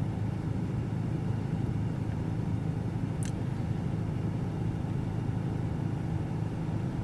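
Steady low hum of an idling vehicle engine, with one brief high chirp about three seconds in.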